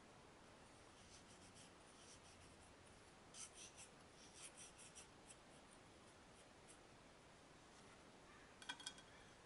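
Faint, gritty rubbing of granulated sugar and vanilla seeds between fingertips against a small glass bowl, in short scratchy strokes, most of them in the first half. Near the end there is a brief, light clink with a short ring.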